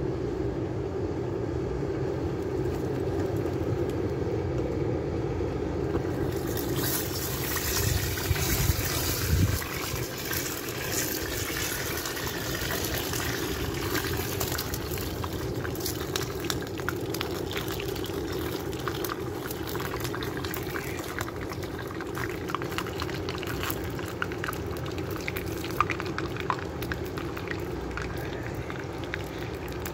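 Red-hot steel knife blade quenched in a metal can of liquid, starting about six to seven seconds in: a loud sizzle and bubbling with crackles that keeps going, over a steady low rumble. It is the sound of the blade being hardened.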